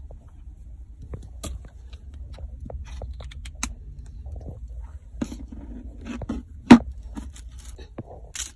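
Handling noise from a plastic squeeze bottle of yellow mustard being squeezed over a hot dog and set down: scattered small clicks and knocks, the loudest a sharp knock about two-thirds of the way in, over a low steady rumble.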